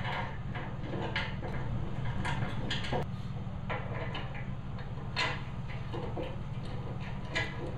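Scattered light metal clinks and knocks from steel bumper parts and hand tools being handled during assembly, over a steady low hum.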